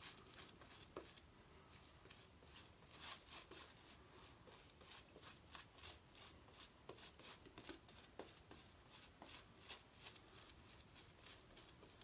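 YaQi badger shaving brush swirling shave-soap lather over a stubbled face: faint, quick, irregular brushing strokes.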